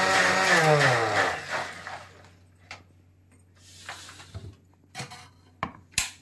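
Electric mixer grinder (mixie) grinding aloe vera and ginger with water, then switched off: the motor's hum falls in pitch and fades away over about a second. A few light knocks and clicks follow near the end.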